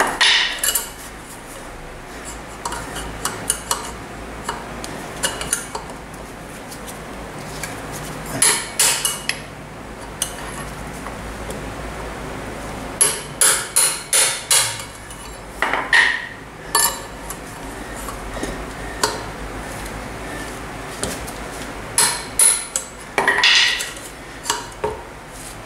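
Hammer blows on a steel drift set against a wheel bearing in a moped's wheel hub, driving the old bearing out. The blows are sharp and metallic with a slight ring, coming in short bursts of a few strikes with pauses between.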